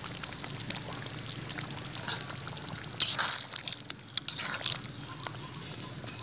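Spatula stirring and sloshing through thin chicken curry steaming in a metal kadai, with scattered clicks and a sharp one about three seconds in.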